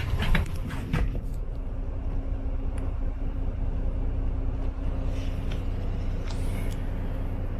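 Bus engine and road rumble heard from inside the cabin as the bus drives along: a steady low drone with a faint steady hum, and a few short knocks and rattles in the first second.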